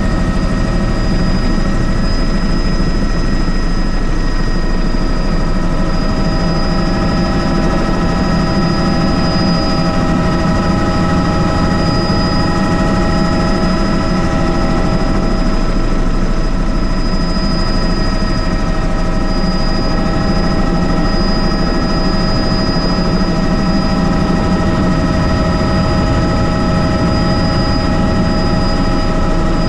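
Tour helicopter in flight, heard from on board: a steady, loud rotor and engine rumble with several constant high whining tones over it.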